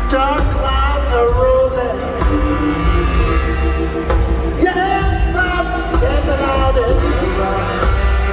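Live blues band playing, with sung vocals over a steady band accompaniment.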